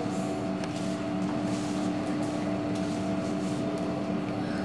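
Steady hum with a few constant tones over room noise, with faint scattered rustles.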